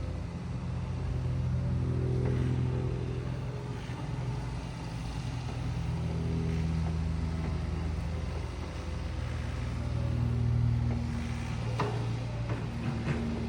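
Diesel engine of heavy machinery running, its speed rising and falling. A few sharp clacks come near the end.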